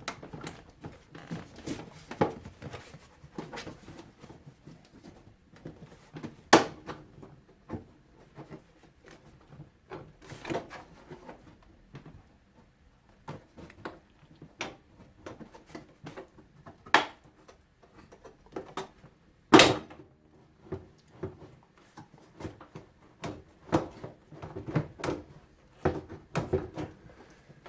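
Irregular clicks and knocks of a screwdriver and loose parts while screws are taken out of a dishwasher's door panel, with a few sharper knocks about six and a half, seventeen and twenty seconds in.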